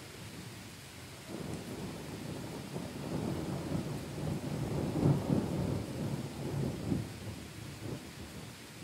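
A long roll of thunder over steady rain. The rumble builds from about a second in, is loudest around the middle, and dies away near the end.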